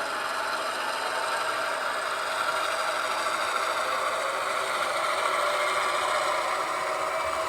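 Steady diesel engine sound from the Tsunami 2 sound decoders of two HO-scale locomotives, played through their small on-board speakers as they run, mixed with the whir of their motors and wheels on the track.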